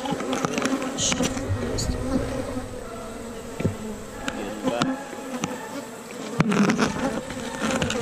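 Swarm of honey bees buzzing around an opened hive and close to the microphone, the pitch wavering as individual bees fly past. A few sharp knocks sound through it.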